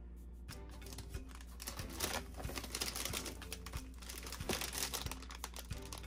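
Plastic food packages and containers rustling and clicking as they are handled in a refrigerator drawer, a dense run of quick crinkles and taps, over background music.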